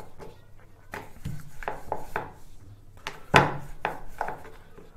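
Wooden rolling pin rolling wheat dough thin on a wooden board: an irregular string of short rubbing strokes and light knocks of wood on wood, the loudest a little past the middle.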